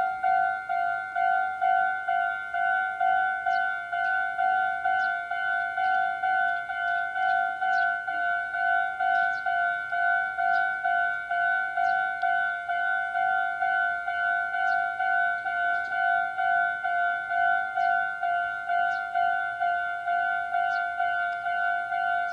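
Japanese railway level crossing's electronic warning bell ringing "kan-kan" in a fast, even repeating rhythm, signalling that a train is approaching and the crossing is closed. Faint, scattered high clicks sound behind it.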